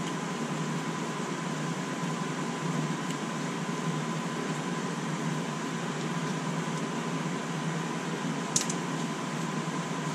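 Steady whirring background noise with a faint high steady tone. About eight and a half seconds in, one sharp click comes from hand work at the front brake caliper.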